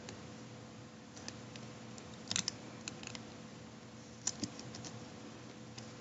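Light clicks and taps of a metal-tipped Rainbow Loom hook against the loom's plastic pegs and rubber bands as bands are lifted over. There is a small cluster about two and a half seconds in and a sharper single click just past four seconds, over a faint steady hum.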